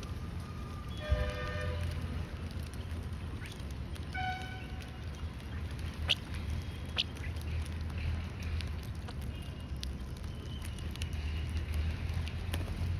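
Lovebirds giving short squawking calls, about a second in and again around four seconds, then a few sharp chirps, over a steady low hum.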